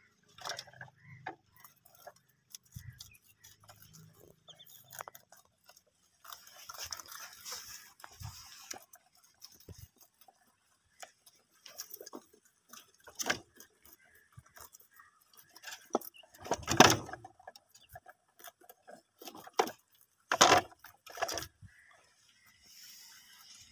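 Plastic toy truck knocking and clattering as rabbits push at it and feed from its load of greens: scattered clicks and taps with a rustle, and a few louder knocks in the second half.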